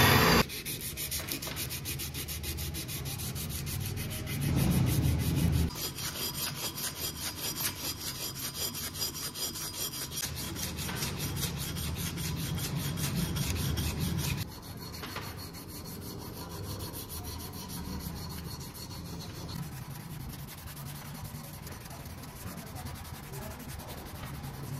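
Sandpaper rubbed back and forth on wood in quick, even strokes, a little louder for a moment about five seconds in and softer from about halfway through.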